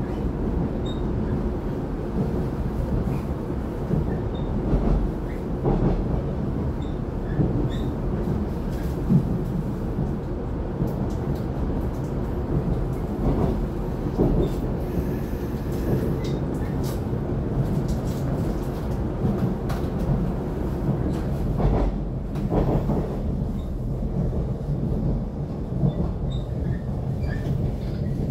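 Inside a moving electric multiple-unit commuter train, the Taiwan Railways EMU700 local set EMU729+EMU730, running at speed between stations. A steady rumble of wheels on rail with running noise, and occasional light clicks.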